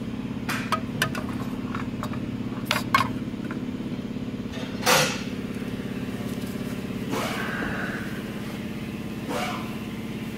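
A steady low motor drone with a fast pulse, overlaid by several sharp clicks and knocks and a longer scrape as the upper radiator hose of a Ford F-150 is moved aside by hand in the engine bay; the loudest knock comes about halfway through.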